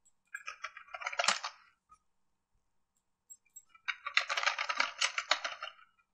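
Computer keyboard typing in two quick bursts of rapid key clicks, the second one longer.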